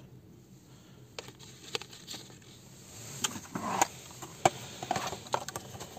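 Handling noise: scattered clicks, taps and rustles of a plastic box tray and a charging cable being handled, busier in the second half, with one sharp click about four and a half seconds in.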